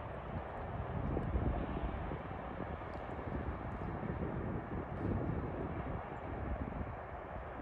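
Wind buffeting the microphone: a low, uneven rush of noise that surges in gusts, with no clear tone.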